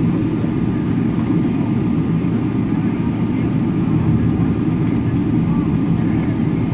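Steady low rumble inside the cabin of a jet airliner taxiing, its engines running at low power with no build-up to take-off thrust.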